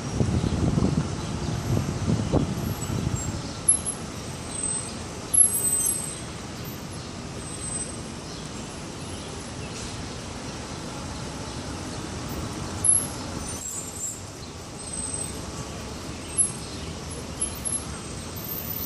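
City traffic heard from a park: a heavy vehicle rumbles past in the first few seconds, then a steady roadway hum carries on, with a few short, high chirps and brief knocks over it.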